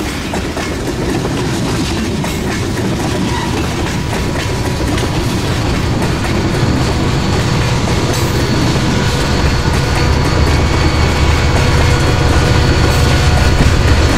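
HO scale model freight cars rolling past on track, a steady rumble of plastic wheels with faint clicking over the rail joints. A low hum grows louder through the second half as the train goes by.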